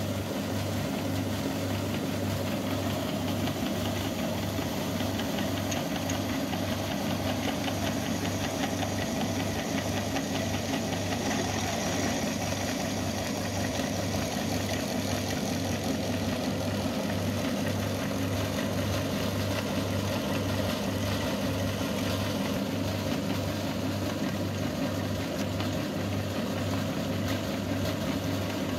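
Belt-driven meat grinder running steadily, its flywheel turning, with a low hum that pulses about twice a second as it grinds toothpaste.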